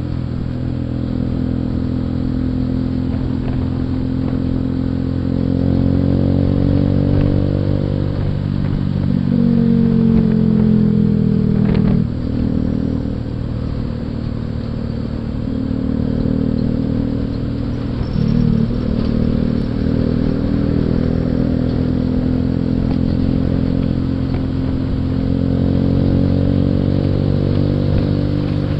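Suzuki Shogun 125's single-cylinder four-stroke engine under way, its pitch climbing under throttle and dropping back several times, with a steady low road and wind rumble.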